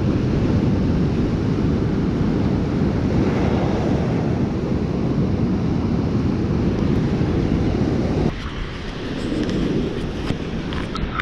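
Wind buffeting the microphone over breaking ocean surf, a steady low rumble. About eight seconds in it drops to softer surf with a few light clicks.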